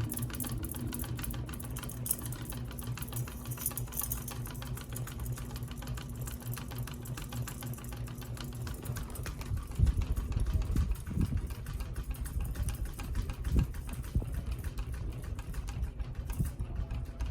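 A flush-mount ceiling fan running with a low motor hum and a fast, steady rattle from its pull chain shaking against the fixture. A few low thumps come about ten to fourteen seconds in.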